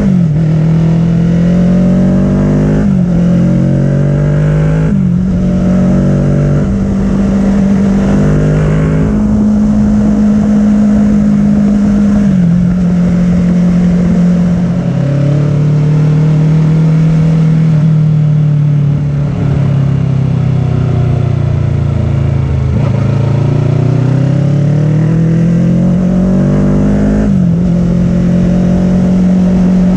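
Kawasaki Ninja 650's parallel-twin engine through an Arrow full-system exhaust, revving hard up through the gears with a quick drop in pitch at each upshift in the first few seconds, then holding high revs in top gear. After the middle it falls away as the bike slows, then climbs again with another upshift near the end, over the rush of wind on the bike-mounted microphone.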